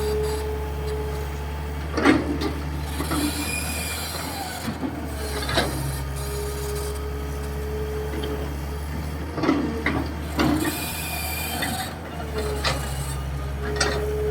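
Hitachi EX220-3 long-reach excavator working: a steady diesel drone with a hydraulic whine that comes and goes, and sharp metallic squeals and scrapes about five times as the boom and bucket move.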